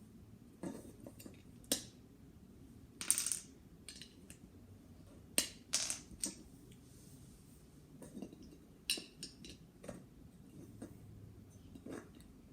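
Plastic LEGO pieces clicking and rattling as they are handled: irregular sharp clicks scattered through, with a few brief rustles of pieces being sorted.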